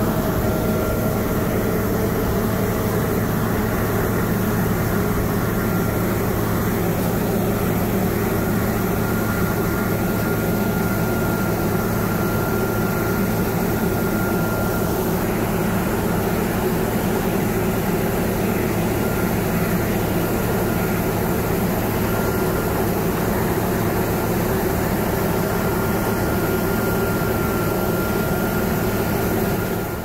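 John Deere T670i combine harvester running steadily while cutting wheat: a constant low engine hum with a high whine that comes and goes.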